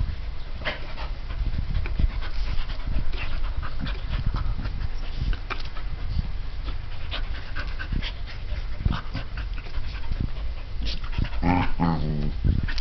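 Two dogs play-fighting: panting, with quick scuffling and clicking sounds of their play, and one short pitched vocal sound from a dog near the end.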